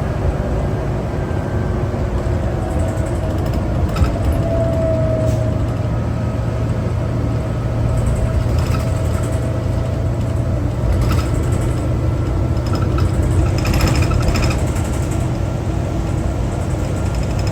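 Cabin sound of a 2011 New Flyer D60LFR articulated bus, its Cummins ISL9 diesel running with a steady low rumble and a faint whine. Light rattles and clicks come and go in the second half.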